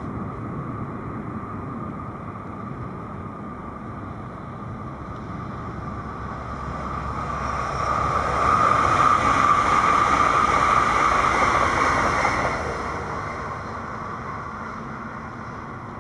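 A train passing by: a rumbling hiss that swells to its loudest in the middle and then fades away as the train goes past.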